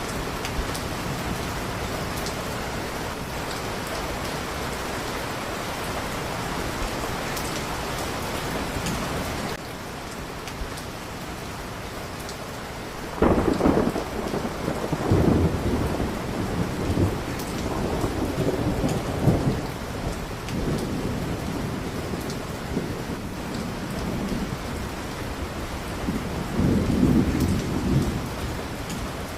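Steady heavy rain with thunder: a rumble breaks in suddenly about halfway through and rolls on in swells for several seconds, and another rumble swells near the end.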